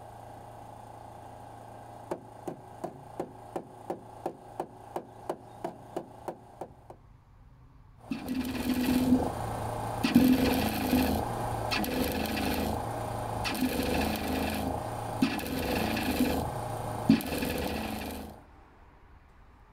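MIG welder laying short stitch welds along a new steel outer sill panel on a VW T4 van: loud, dense crackling that comes and goes in spells of about a second with short gaps, stopping abruptly near the end. Before it there is a run of about a dozen sharp clicks, about three a second.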